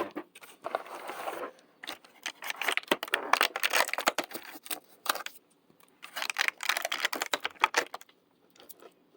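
Plastic keychain fidget toy, folding like an infinity cube, flipped over and over in one hand. It makes quick runs of small clicks and clacks in three bursts, the longest in the middle.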